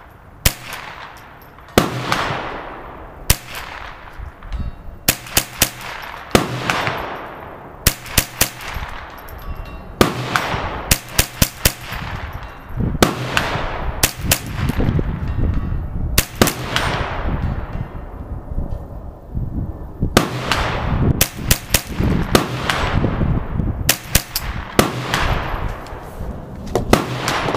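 Ruger 10/22 Tactical semi-automatic .22 LR carbine firing a long string of shots, some single and some in quick runs of two to four. Each shot is trailed by about a second of echo.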